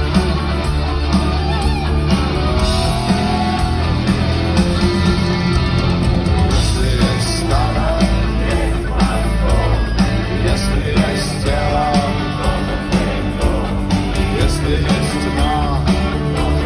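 Live rock band playing a song through a stadium sound system: electric guitars, bass and drums, with singing over them.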